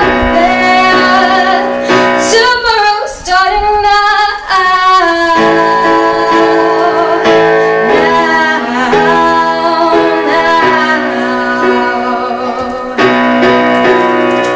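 A young woman singing with her own Yamaha keyboard accompaniment: held chords under a sung line, with a wavering vocal run about two seconds in.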